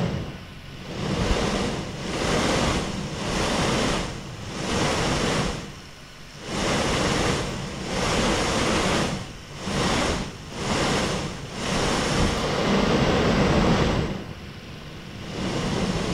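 A small DC motor spinning a 3D-printed fan blade at 14.5 volts, its airflow rushing over the microphone as a wind-like noise. The rush swells and drops every second or so, with a longer drop near the end.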